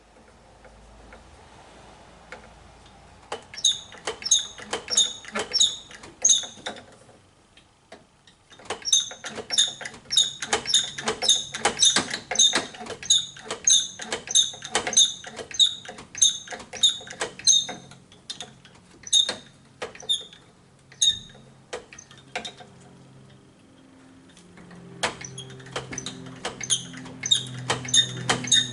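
Hand pump of an injector pressure tester worked in quick strokes, squeaking about twice a second in several runs with short pauses between.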